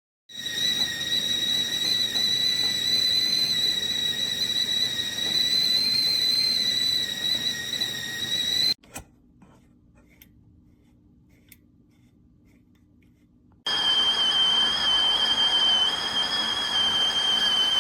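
Venoly stainless steel stovetop kettle whistling at the boil: a steady, shrill whistle for about eight seconds that cuts off suddenly. A few seconds later a second, slightly lower steady whistle sets in and runs to the end.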